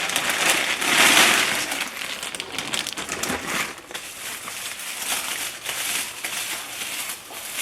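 Packing material crinkling and rustling as a wrapped item, a glass jar, is unwrapped by hand; busiest about a second in, then softer crinkles continue.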